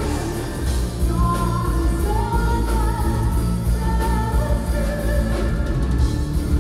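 Live symphonic metal band playing: a female lead vocalist sings long held notes over distorted guitars, drums and keyboards.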